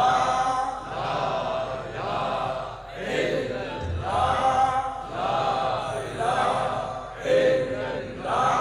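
Devotional chanting: men's voices repeating short phrases that swell and fade every second or two.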